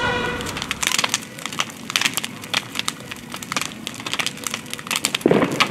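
Shed fire crackling, with many sharp irregular cracks and pops from the burning material, and a heavier knock near the end.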